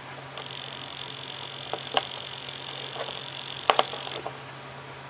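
Small plastic clicks and taps of a clevis and control rod being fitted onto a servo arm by hand: one click about two seconds in and a sharp double click a little later, over a faint steady high hiss.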